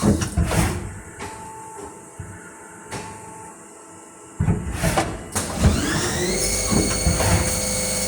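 Haas SL-10 CNC lathe working 4 mm stainless steel bar with automatic bar pull-out: knocks and clatter at first, a quieter spell, then about halfway through the machine starts up again, its spindle whine rising in pitch and levelling off to a steady tone.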